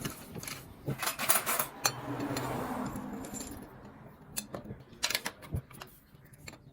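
Scattered metallic clinks and taps of hand tools and small engine parts being handled, with a short rustling stretch about two seconds in.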